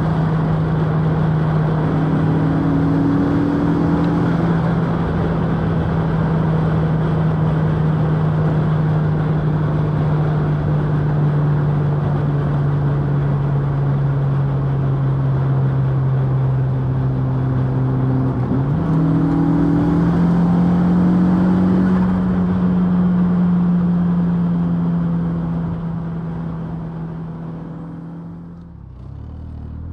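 Turbocharged 1.8-litre 20-valve four-cylinder engine of a Mk2 Golf, heard from inside the car, running at fairly steady revs that sag slowly. About two-thirds of the way in the revs step up and then ease off. Near the end the engine quietens, and then the revs start climbing again from low.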